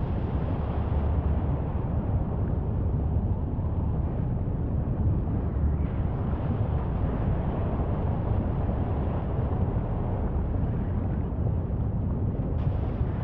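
Steady low wind rumble and buffeting on a microphone aboard a boat at sea, mixed with the sea's noise. The sound shifts slightly at cuts between clips about six seconds in and near the end.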